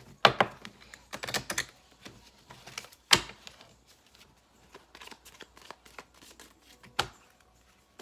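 Tarot cards being shuffled and handled: a run of irregular clicks and snaps, with three sharper knocks, one just after the start, one about three seconds in and one near the end.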